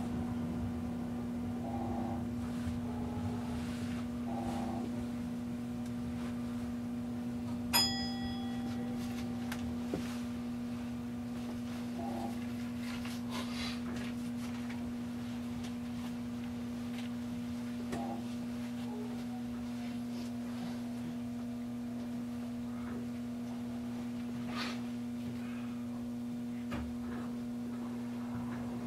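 Steady electrical hum in the cab of a Keio Line electric train. About eight seconds in comes a single short, bright ding.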